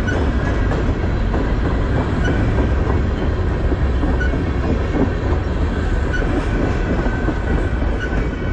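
Freight train's tank cars and covered hopper cars rolling past at close range: a steady, loud rumble of steel wheels on the rails.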